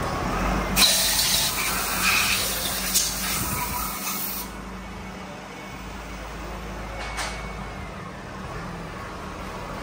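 Workshop noise: a loud hiss that cuts off about four and a half seconds in, over a steady low hum, with a single sharp click about seven seconds in.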